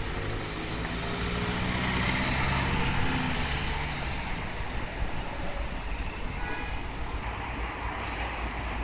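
Street traffic: a motor vehicle's engine passes close by, loudest about two to three seconds in and fading out by about four seconds, over a steady road rumble.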